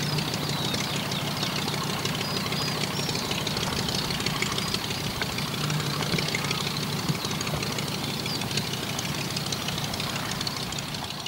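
Airco DH.2 biplane's pusher engine and propeller running steadily at low power as the aircraft taxis on the ground, a constant low drone that eases off slightly near the end.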